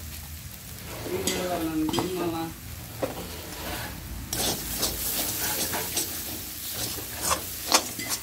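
Metal spatula stirring and scraping a frying onion-and-spice masala in a steel kadai, with the food sizzling in oil. From about four seconds in the sizzle gets louder and the spatula clicks and scrapes against the pan again and again.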